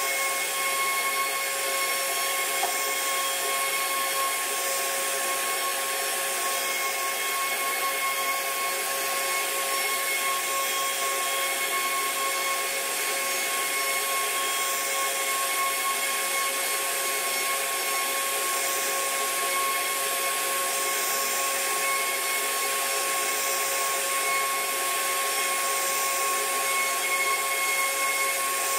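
CNC router spindle carving an ornamental relief into a wooden panel: a steady high-pitched whine over the hiss of the bit cutting wood.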